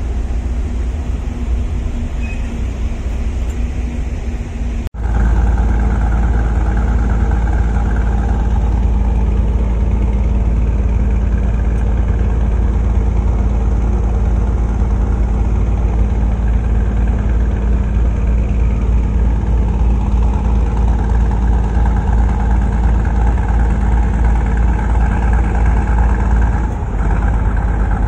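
Engine running steadily with a low drone. It breaks off abruptly about five seconds in and resumes louder and fuller.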